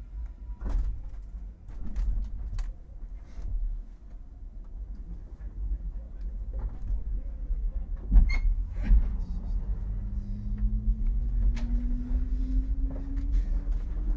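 Traction motors and running gear of a JR East 189 series electric train, heard inside its motor car as it gets under way: a low rumble with scattered clicks and clanks and one sharp knock a little past halfway. From about ten seconds in, the motor whine rises slowly in pitch as the train gathers speed.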